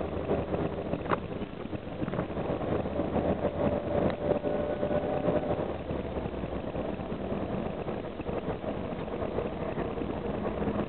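Inside a moving Karosa B741 articulated city bus: its diesel engine drones steadily under tyre and road noise, with a faint steady whine for a couple of seconds near the middle and a short click about a second in.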